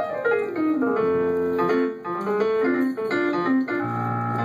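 Piano playing a melodic passage over sustained chords, as accompaniment to a live song.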